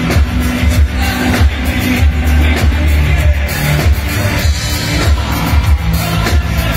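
Live synth-pop band playing loud with drums, bass, electric guitar and synthesizer keyboards, with a steady beat and held bass and keyboard notes.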